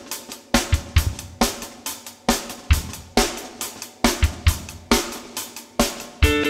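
Background music: a drum kit playing a steady beat, with guitar or other pitched instruments coming in near the end.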